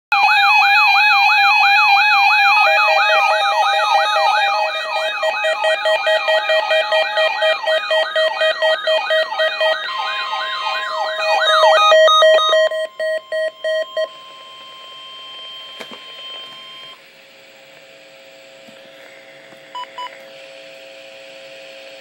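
Weather radio receiver sounding its alert for a required weekly test: a loud warbling siren tone sweeping up and down about twice a second over steady beeping tones for about twelve seconds, then four short beeps, then quieter steady tones.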